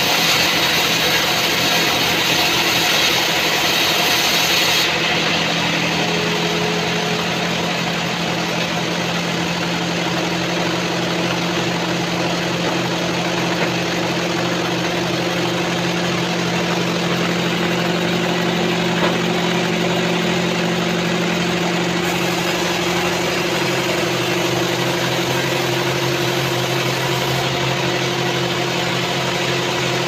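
Band sawmill running: the blade saws through mahogany with a bright hiss that drops away about five seconds in. The saw then runs on with a steady motor hum.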